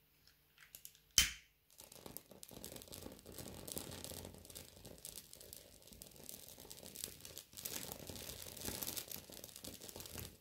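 Dry bay leaf crackling as it burns: a dense, irregular run of small snaps and pops that starts about two seconds in, just after a single sharp click.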